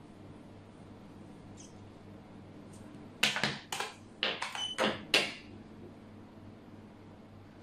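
A xiangqi piece set down on the board and a chess clock button pressed: a quick run of about seven sharp clacks and clicks starting about three seconds in and lasting about two seconds.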